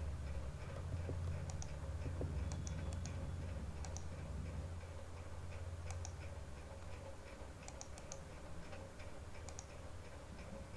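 Computer mouse clicks, single and in quick pairs every second or two, as footprints are picked and placed in the PCB layout software. Under them run a faint steady ticking about four times a second and a low hum.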